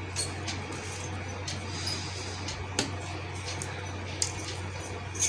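Chicken curry ladled from a steel pot onto rice rotti on a steel plate: about five light clinks of the ladle on steel, roughly a second apart, over a steady low hum.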